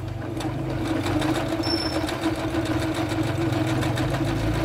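Jaguar CD-2205MP electronic sewing machine running steadily as it sews an overlock stitch along a fabric edge: an even motor hum with a fast, regular needle rhythm.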